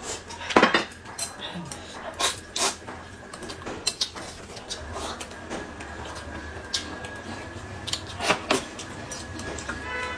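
Eating at the table: noodles slurped from a bowl and chewed, with a few short clicks of chopsticks and porcelain bowls.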